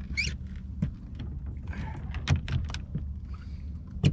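Scattered clicks and knocks of tackle and fish being handled aboard a small fishing boat, over the steady low hum of the idling engine. A brief high squeak comes just after the start, and a sharp knock near the end.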